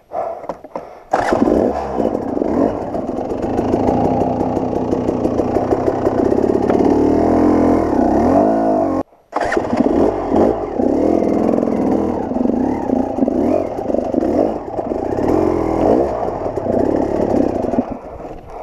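KTM 300 XC-W two-stroke dirt bike engine revving up about a second in, then running with revs that rise and fall as the bike is worked over rocks on a steep climb. It breaks off abruptly for a moment just after nine seconds, then carries on.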